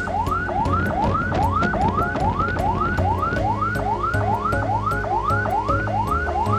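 Ambulance electronic siren in its fast yelp mode: rising sweeps repeating at nearly three a second, each climbing and cutting off at the top, over a low steady hum.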